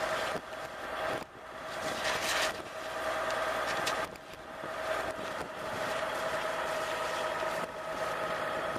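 Fire engine's motor and pump running at a steady pitch, with water spraying from a fire hose nozzle.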